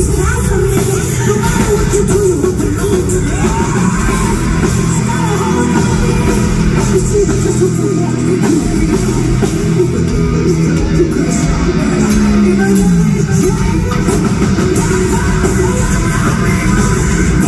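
Live heavy metal band playing loud, with guitars, drums and singing, heard from within the crowd in a large hall.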